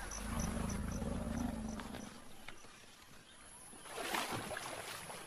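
Forest elephant rumbling, a deep low call lasting about two seconds, followed near the end by a brief rush of noise.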